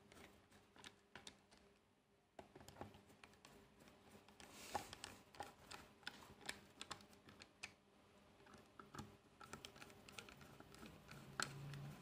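Faint, scattered clicks and short scrapes of a screwdriver turning the small screws that hold a car horn's metal cover to its body.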